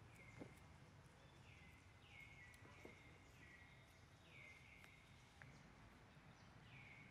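Quiet outdoor ambience with a faint high call repeated about once a second, each call dropping in pitch and then holding briefly.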